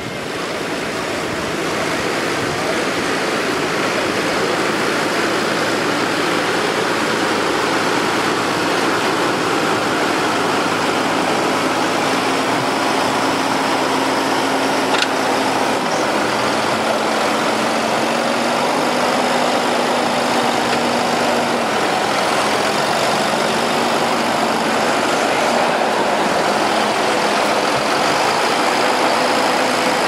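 Large Fendt tractor's diesel engine running steadily as the tractor pulls a reversible plough through wheat stubble.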